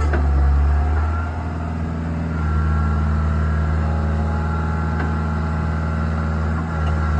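Skid steer engine running steadily with a low, even note; it picks up slightly about two and a half seconds in.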